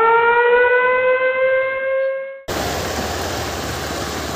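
A siren-like synthetic tone that glides up and then holds steady, the sound effect of a subscribe-button animation, cutting off suddenly about two and a half seconds in. It is followed by a steady rushing noise with a low hum from the flooded street.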